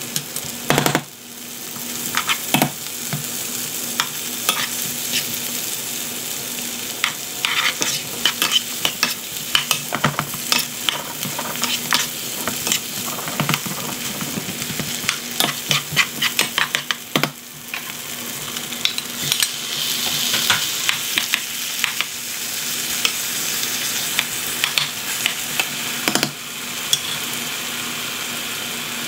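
Potato and carrot sticks sizzling in butter in a nonstick frying pan, with a steady frying hiss and a plastic spoon stirring, clicking and scraping against the pan many times.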